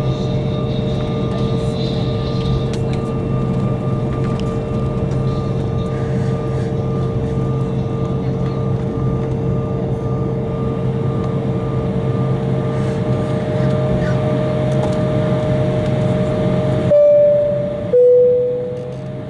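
Steady hum inside an Embraer jet's cabin on the ground after landing, with steady whining tones over it. Near the end, a two-note descending cabin chime sounds: a higher note, then a lower one, each about a second long.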